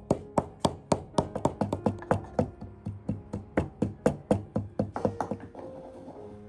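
A knife chopping on a cutting board in a quick, even rhythm of about four strokes a second, with soft background music underneath.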